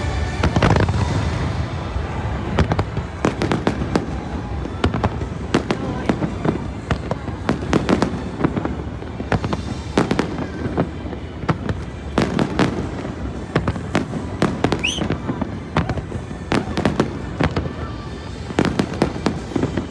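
Fireworks display: a steady run of sharp aerial shell bangs and crackle, with a rising whistle about fifteen seconds in.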